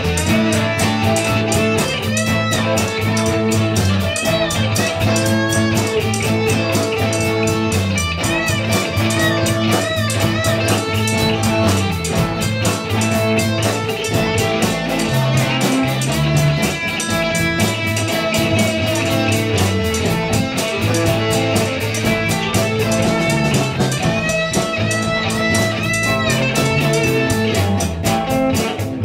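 Live rock band playing an instrumental passage with no singing: electric guitar over bass guitar and keyboard, with a steady drum beat.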